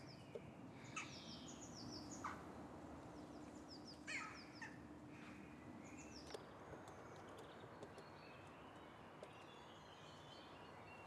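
Faint outdoor bird ambience: many quick, high, downward chirps from small birds, with a few soft clicks and knocks.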